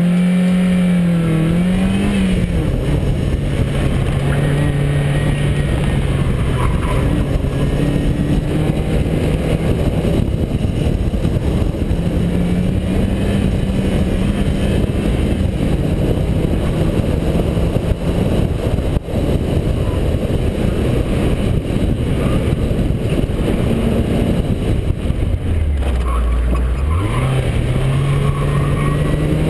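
Car engine under hard driving on an autocross run, its pitch rising and falling with the throttle over a steady rush of tyre and wind noise. About 26 seconds in the engine note drops low, then climbs steadily again as the car accelerates.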